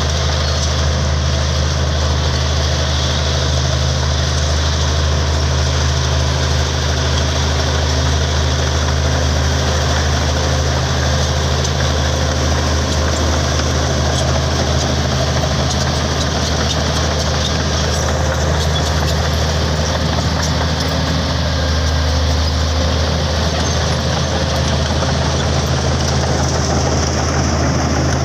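Komatsu D65P bulldozer's diesel engine running steadily, with a deep, even engine note.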